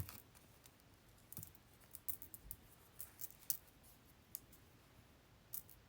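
Faint, scattered small clicks and taps of beads being handled and strung onto a necklace, a few irregular clicks every second or so with quiet gaps between.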